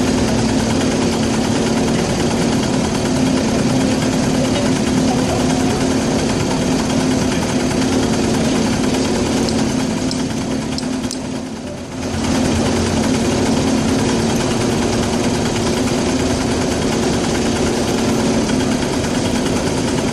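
Small engines of street go-karts idling steadily while stopped; the level dips briefly about halfway through.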